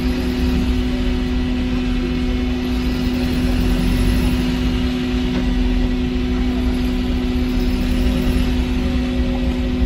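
Cabin sound of a Volvo B5LH hybrid bus: a steady low rumble with a constant, even hum from the drivetrain.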